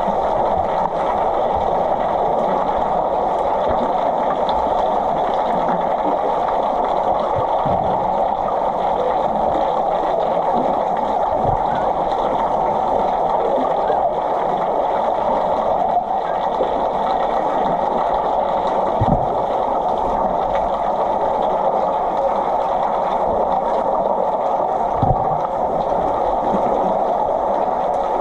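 Steady, muffled swimming-pool noise heard from under the water, with a few low knocks, one about two-thirds through and another near the end.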